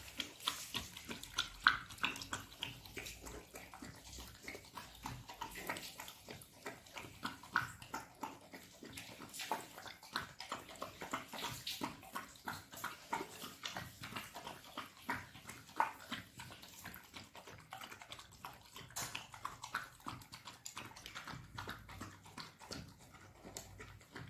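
Golden retriever puppy eating rice and fish from a stainless-steel bowl: a steady run of small irregular smacking and clicking sounds from its chewing and licking against the bowl.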